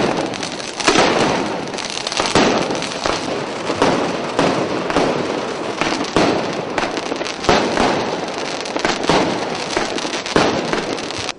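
Fireworks and firecrackers going off in a dense, continuous string of sharp bangs and crackles, many each second.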